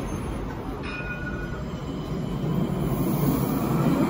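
T9 tram running past close by along the platform, its rolling rumble growing steadily louder, with a brief faint high squeal about a second in.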